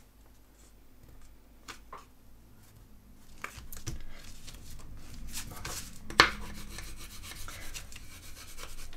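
Paper being rubbed as a glued cardstock panel is pressed flat onto a card base by hand and then burnished with a bone folder. A few light taps come early, and one sharp click about six seconds in.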